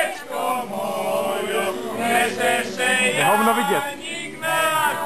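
Several people singing together, their voices overlapping.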